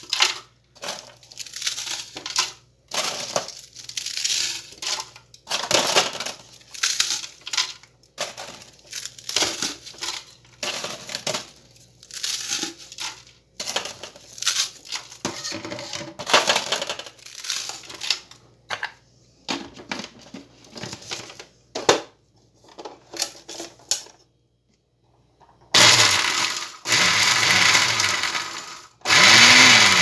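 Pieces of dry bread rustling and crunching in irregular bursts as they are broken and dropped into a blender jar. After a short pause, a vintage Walita electric blender runs loudly, grinding the dry bread into breadcrumbs. It stops briefly near the end, then starts again and rises in pitch.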